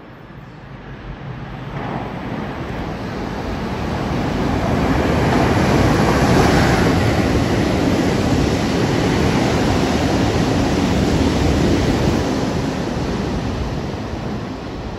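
Electric passenger train running through an underground station without stopping. Its rumble and rail noise build up over the first few seconds, hold loud through the middle as it passes, then fade as it recedes into the tunnel, echoing off the station walls.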